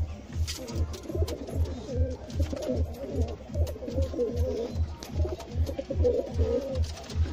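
Domestic pigeons cooing, a wavering, throaty warble, over background music with a steady bass beat about two and a half times a second.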